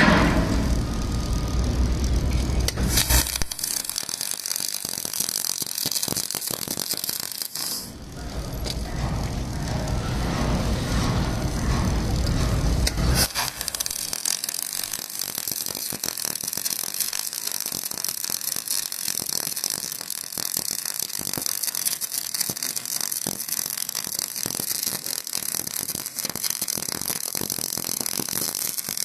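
Semi-automatic gas-shielded arc welding on a steel groove plate: the welding arc crackles and sizzles steadily. It burns for a few seconds starting about three seconds in, stops for a few seconds under a low rumble, then restarts about thirteen seconds in and runs on through a finishing pass.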